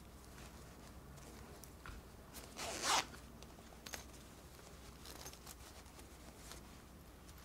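Small zipper on a plush toy's fleece coat pulled in one quick, half-second zip about two and a half seconds in, with a few faint clicks and handling rustles of the plush fabric around it.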